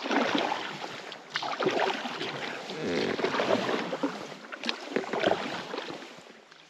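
Water splashing and rushing around a small raft moving on a river, in irregular choppy surges that fade away near the end.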